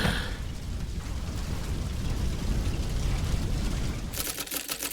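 A low explosion rumble from the animation, dying away slowly. About four seconds in, rapid typewriter-like clicking starts.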